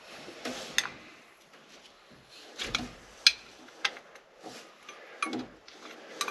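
Combination wrench clinking against bolt heads and the cast-iron housing of a tractor's power shift control valve as it is fitted and turned: a handful of sharp metallic clicks and knocks at irregular intervals, the loudest a little over three seconds in.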